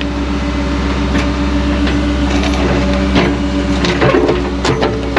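Diesel engine of an excavator running steadily while the bucket works an old galvanized culvert pipe out of the ground, with several sharp scrapes and knocks of metal and rock.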